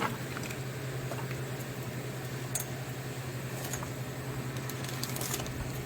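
A steady low hum at one pitch, with a few faint light ticks.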